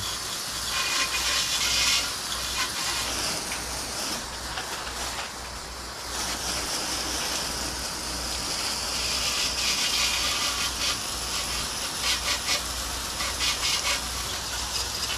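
Spray of water from a garden hose nozzle hissing and spattering against a motorcycle's front wheel and fender during a rinse, a little softer for a moment about five seconds in.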